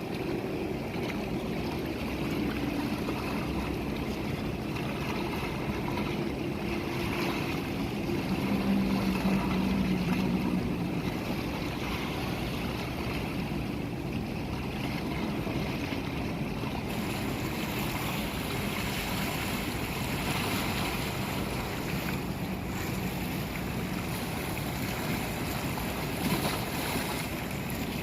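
Steady rush of moving water, with a faint low hum under it during the first half.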